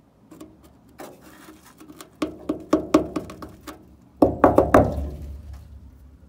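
Hand knocking on the rusty steel inner wing of a Ford Cortina Mk3 shell, a string of sharp knocks with a short metallic ring. A few scattered taps build to a quicker run, and the loudest group of about five knocks comes just after the middle.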